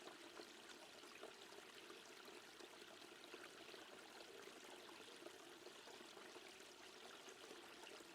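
Near silence with a faint, steady sound of running water, like a stream.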